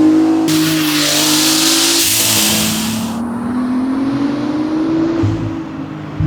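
Porsche 911 Turbo S (992.2) twin-turbo flat-six with an aftermarket exhaust and vent-to-atmosphere adapters, running loud. About half a second in, a loud hiss lasts a couple of seconds over the engine note, then the engine pitch climbs steadily as the car accelerates.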